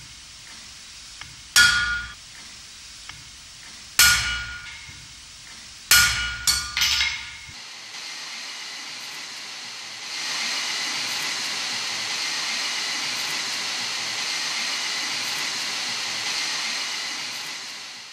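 Hammer striking steel tooling and iron on an anvil, each blow ringing out: single blows about 1.5, 4 and 6 seconds in, then three quicker, lighter taps. After that, a steady hissing burn of the coal forge fire, growing louder about 10 seconds in.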